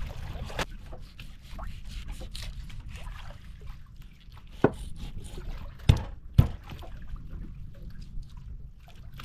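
Fish being cleaned and cut with water: trickling and dripping water with scattered small clicks and three sharp knocks about halfway through, over a low rumble.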